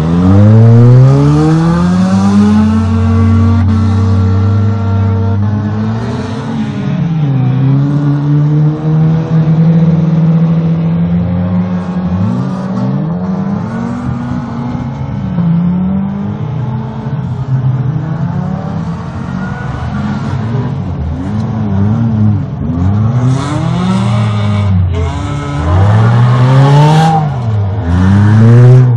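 Several modified stock cars of up to 1800 cc racing on a dirt track, their engines revving up and falling back over and over as they accelerate and lift through the corners, several engines overlapping at once.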